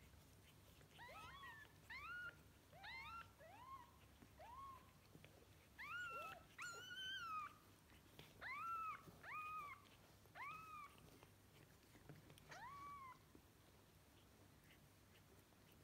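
Newborn kittens mewing softly: about a dozen short, high-pitched mews, each rising then falling in pitch, with one longer cry about halfway through.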